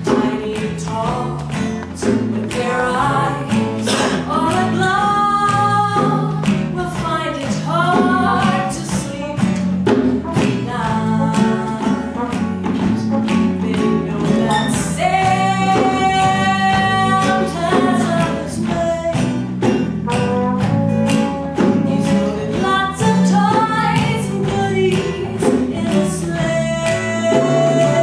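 A small acoustic band playing a slow ballad live: acoustic guitar accompaniment under a melody with long held notes, with a woman singing.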